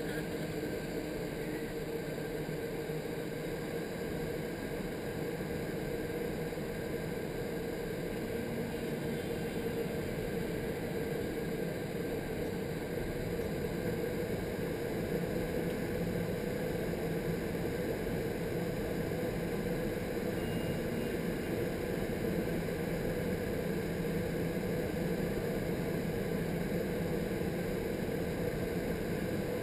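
Indoor skydiving vertical wind tunnel: a steady rush of air through the flight chamber, heard from inside the airflow, with a steady low hum underneath.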